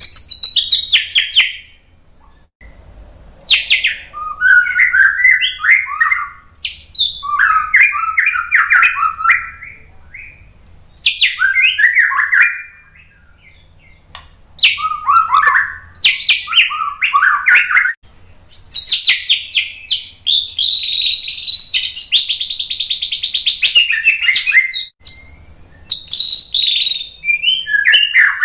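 White-rumped shama (murai batu) singing: varied, quick whistled phrases broken by short pauses, including one long phrase about three-quarters of the way through that runs into a rapid trill.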